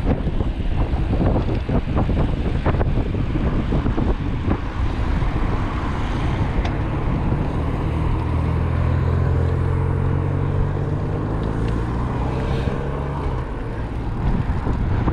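Wind buffeting the microphone over outdoor noise, with a motor vehicle's engine running steadily for several seconds in the middle.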